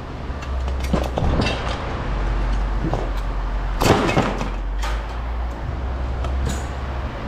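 Scrap metal being handled at a scrap yard scale: a few knocks and a louder scraping clatter about four seconds in, over a steady low rumble.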